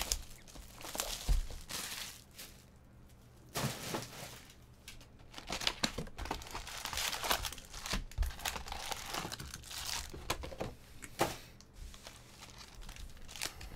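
Plastic shrink-wrap crinkling and tearing as it is stripped off a sealed trading-card box. The box is then opened and the wrapped card packs are handled and stacked. The rustles come irregularly, with a short lull a couple of seconds in.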